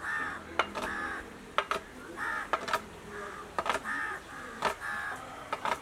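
Crows cawing over and over in short calls. Sharp knocks come about once a second from a long wooden pestle being pounded.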